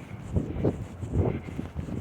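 Footsteps and rustling on the microphone, in uneven low thumps a few times a second, with some wind noise.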